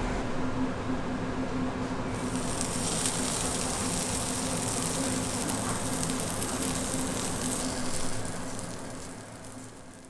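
Beef sizzling on a hot cast-iron grill plate: a steady hiss that turns brighter about two seconds in, over a steady low hum, then fading out near the end.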